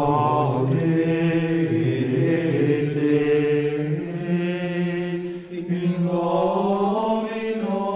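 A small group of Trappist monks singing chant: men's voices on long held notes that move slowly in pitch, with a brief break for breath a little over five seconds in.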